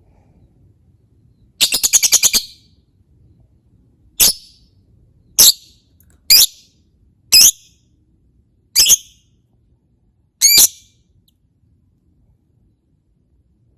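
Lovebird calling: a short rapid chattering burst of about eight notes, then six shrill single calls, each roughly a second or more apart.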